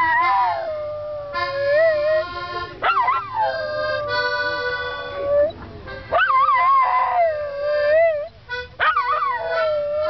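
A dog howling along to music in four long howls. Each swoops up, then wavers down and settles on a held note, over the steady held notes of the accompaniment.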